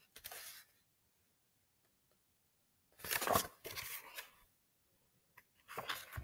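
Pages of a picture book being turned and handled: several short paper rustles, the loudest about three seconds in.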